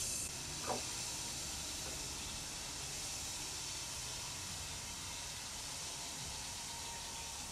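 Steady background hiss with one short knock a little under a second in.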